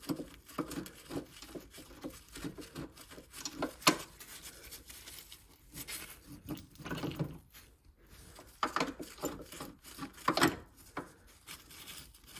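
Gloved hands handling bolts and metal parts under a car: scattered clicks, knocks and rubbing, with a couple of louder knocks about four seconds in and again near ten seconds.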